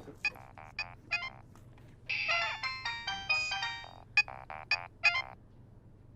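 Mobile phone ringtone: a short electronic melody that repeats its phrase and stops about five seconds in.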